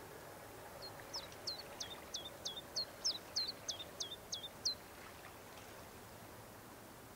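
A songbird sings a rapid series of about a dozen high notes, each sliding downward, about three a second, lasting roughly four seconds. A steady faint background hiss runs beneath it.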